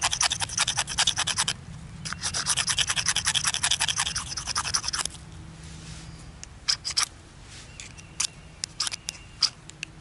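Swiss Army knife blade scraping quickly along a magnesium fire-starter bar, shaving off magnesium flakes for a fire. It comes in two runs of rapid strokes, then after a pause only a few separate scrapes near the end.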